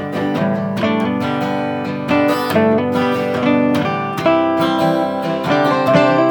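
Acoustic guitar strummed and picked, carrying an instrumental break in the song of a solo cover performance.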